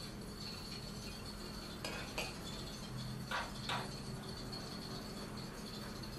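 Metal spatula clinking and scraping on a steel ice-cream-roll cold plate and against ceramic as the rolls are lifted and set in a dish, with a few light clinks about two and three and a half seconds in. A steady faint hum runs underneath.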